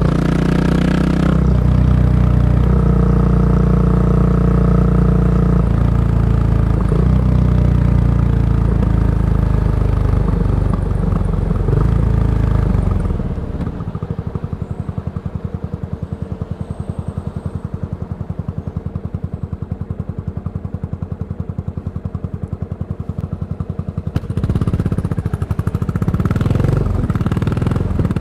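Yamaha SR400's single-cylinder four-stroke engine running through a Goods tapered-cone slip-on muffler while under way. About halfway through it falls back to a quieter, evenly pulsing beat for some ten seconds, then rises again near the end.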